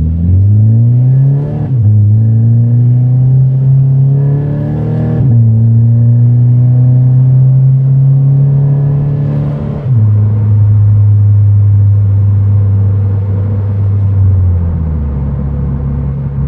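Toyota 86's 2.0-litre flat-four running through an MXP Comp RS full exhaust as the car accelerates up through the gears. The pitch climbs and drops sharply at shifts about 2, 5 and 10 seconds in. It then holds a steadier note and settles lower near the end.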